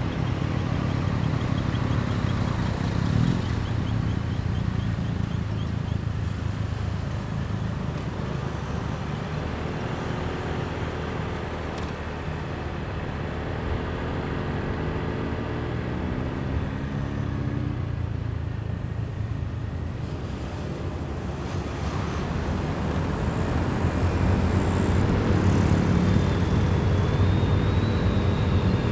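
Riding pillion on a motorcycle taxi in city traffic: the bike's engine running with wind and road rumble on the microphone, the engine pitch rising and falling in the middle as it speeds up and slows. A thin high whine comes in near the end.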